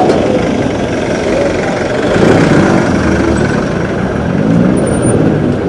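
Passenger jeepney's diesel engine running close by in street traffic, over the steady din of a busy street.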